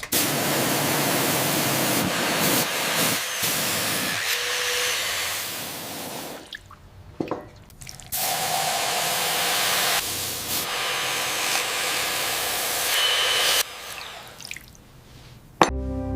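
Spraying hiss in two long bursts, about six and five seconds, with a short break between, then fading near the end.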